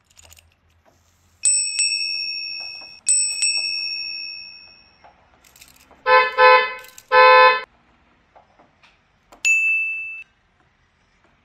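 A bicycle bell rings twice, each ring fading away slowly. Then a car horn beeps three times, two short beeps and a longer one, and near the end a short bright ding sounds once.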